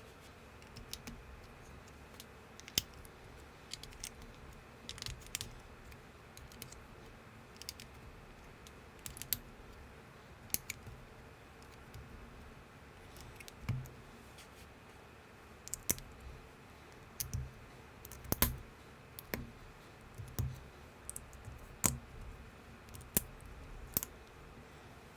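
Plastic LEGO-compatible building bricks being handled and snapped together, with irregular sharp clicks and light knocks every second or so.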